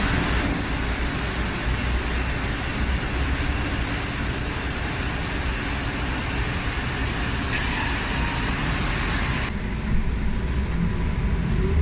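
MAN A95 Euro 6 double-decker diesel bus running as it moves through a bus interchange, with a high thin squeal for a few seconds in the middle. About nine and a half seconds in, the sound changes abruptly to the duller engine and road hum heard inside the moving bus's cabin.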